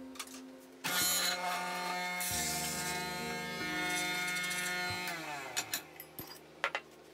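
Electric coffee grinder grinding beans: the motor starts about a second in and runs steadily with a crackly grinding noise, drops in pitch once partway through, then spins down with a falling whine about five seconds in, followed by a few light clicks.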